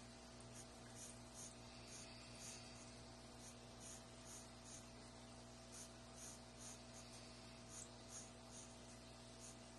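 Pencil scratching on paper in short repeated strokes, about two a second, as a grid of small crossing lines is drawn. Faint.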